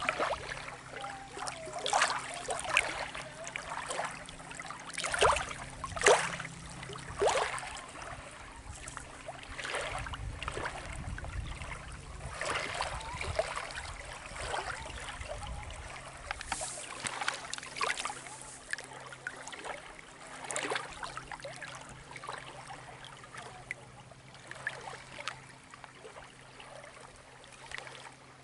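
Shallow lake water lapping and splashing against the rocky shoreline in small, irregular splashes, busiest in the first half.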